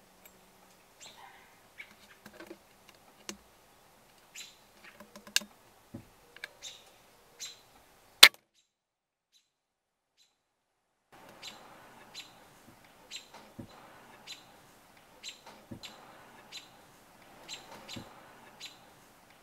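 Birds chirping in short repeated calls, with one sharp, loud shot from a .22 Benjamin Marauder PCP air pistol about eight seconds in. The sound then drops out for a few seconds, and the chirping returns over a faint steady hiss.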